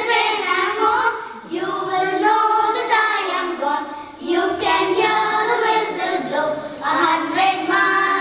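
A small group of young girls singing a song together in unison, holding notes and pausing briefly between phrases.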